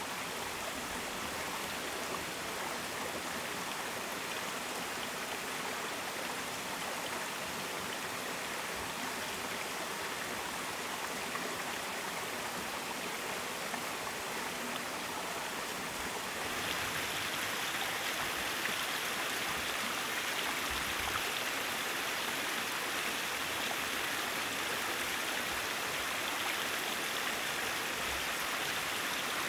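Steady rushing of running water. It grows a little louder and brighter about sixteen seconds in.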